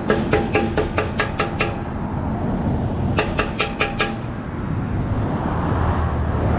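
Metal rod recovered by magnet fishing being banged repeatedly against a hard surface: quick ringing metallic clanks, a run of about eight and then about five more. Road traffic rumbles under and after them.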